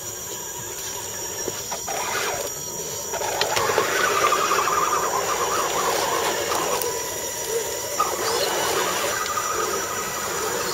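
Electric motors and gear trains of several radio-controlled scale trucks whining as they crawl up a muddy dirt trail, louder from about three seconds in.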